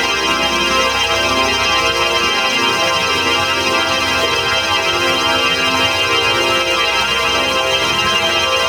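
Heavily processed, organ-like sound effect: a thick, steady chord of many held tones at an even loudness, wavering slightly in its lower notes.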